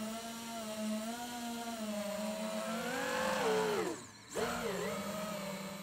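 FPV mini quadcopter's brushless motors and propellers whining steadily, climbing in pitch about three seconds in, then falling away and nearly cutting out for a moment just after four seconds before spooling back up.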